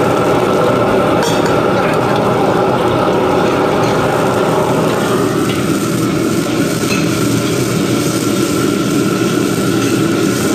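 Pieces of pufferfish sizzling as they fry in hot lard in a wok, over the steady rush of a commercial gas wok burner. A metal ladle stirs them, clinking lightly against the wok a few times.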